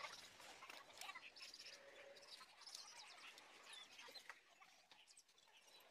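Faint bird chirps over a near-silent background, with a few faint clicks.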